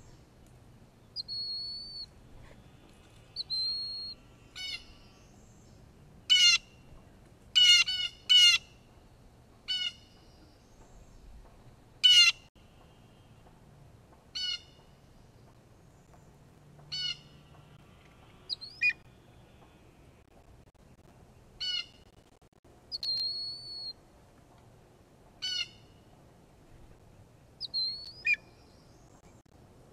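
Blue jays giving repeated harsh jay calls, about a dozen spaced a second or few apart, mixed with a few thin whistled notes: mobbing calls at an eagle.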